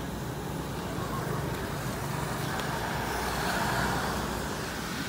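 Steady road traffic noise from a street, swelling a little as a vehicle passes about three to four seconds in.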